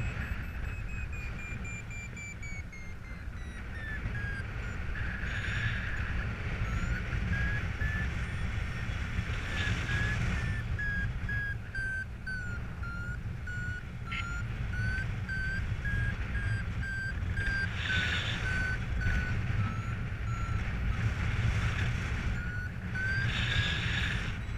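Paragliding variometer beeping in quick repeated pulses; its pitch falls over the first few seconds, wavers, and rises again near the end. The beeping is the sign of the glider climbing in lift. Steady wind noise on the microphone sits under the beeps, with a few brief gusts.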